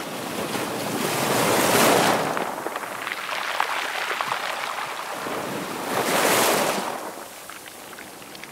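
Sea waves washing in on a rocky shore, swelling twice about four seconds apart and fading after each.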